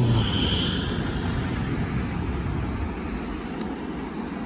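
Fast-flowing mountain river rushing over rocks: a steady, deep roar of water, a little louder in the first second.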